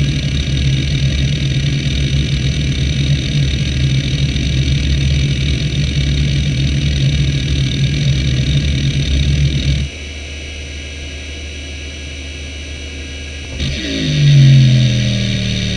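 Conner CP3360 four-platter hard drive seeking rapidly at random, a dense rumbly clatter of the head actuator over the steady spindle hum. About ten seconds in the seeking stops and only the quieter spindle hum remains; near the end a seek benchmark starts, a loud buzz from the heads that falls in pitch as the seeks get longer.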